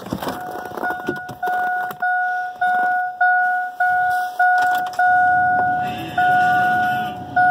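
GMC truck's dashboard warning chime dinging over and over at a single pitch, about twice a second at first, the later dings held longer. A low steady noise joins about five seconds in.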